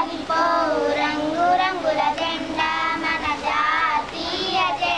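A small group of schoolgirls singing a song together.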